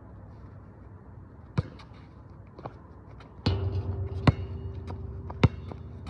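A basketball bouncing on a hard outdoor court a couple of times, then a shot clanging off the metal rim, which rings for about two seconds while the ball bounces twice more.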